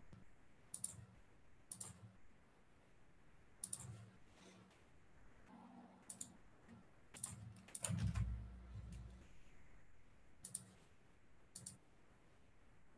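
Faint computer keyboard and mouse clicks, about ten of them spaced irregularly, with a dull thump about eight seconds in.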